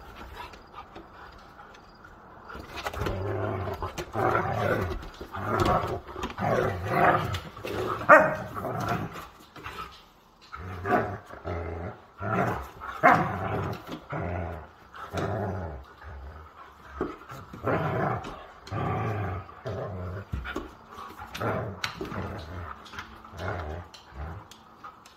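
Siberian huskies play-fighting, growling and barking in rough play in repeated, irregular bursts that start about two seconds in.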